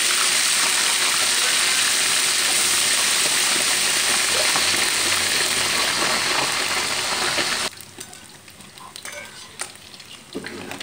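Catfish deep-frying in hot oil in a wok: a loud, steady sizzle. About three-quarters of the way through it drops suddenly to a much quieter sizzle, with light clinks of a slotted spatula and wire strainer as the fried fish is lifted out.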